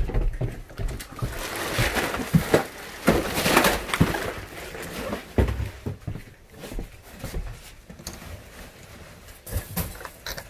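Irregular footsteps, knocks and rustling as someone walks down wooden stairs and across a floor strewn with debris. The sounds are busiest in the first few seconds and thin out later.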